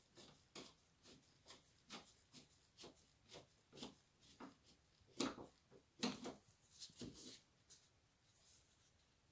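Faint hand-work clicks from fitting doorknob hardware, about two a second and evenly spaced, then a few louder knocks and rattles of the metal parts about five to seven seconds in.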